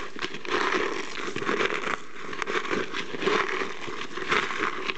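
Cooked chicken eggshells being crushed by hand: a dense, continuous run of small crackles and crunches.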